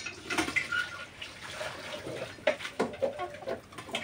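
White broiler chicken giving short, low clucks over a steady hiss of background noise.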